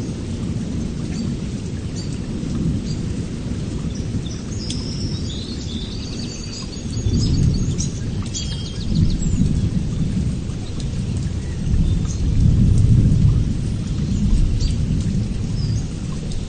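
Steady rain with low rolling thunder rumbling underneath, the rumble swelling louder several times in the second half.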